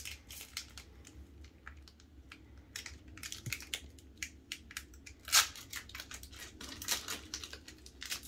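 Foil wrapper of a Pokémon card booster pack crinkling and tearing as it is opened by hand: an uneven run of small sharp crackles, with one louder crackle about five seconds in.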